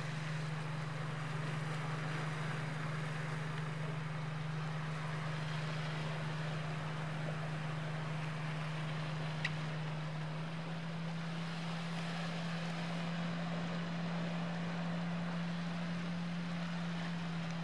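Steady low motor drone over a soft even wash of sea and wind, its pitch stepping up slightly about ten seconds in.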